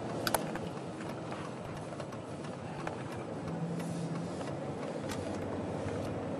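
Steady road and engine noise of a shuttle van driving slowly, heard from inside the cabin, with a few light clicks.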